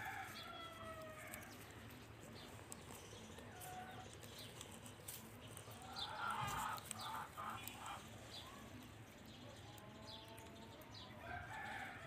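Chickens calling faintly: a drawn-out falling call at the start and again near the end, and a louder run of short repeated calls about six seconds in.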